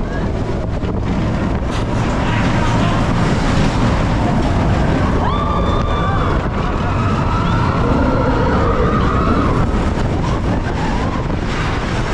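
Expedition Everest roller coaster train running along the track, a steady loud rumble mixed with wind on the microphone, with a brief high wail about five seconds in.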